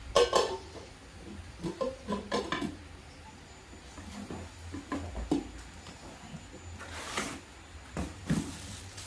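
Kitchenware and its packaging being handled: irregular knocks, clacks and brief rustles, the sharpest right at the start.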